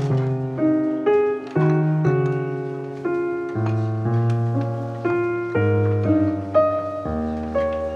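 Background piano music: notes struck one after another and left to ring, over deeper bass notes that change every second or two.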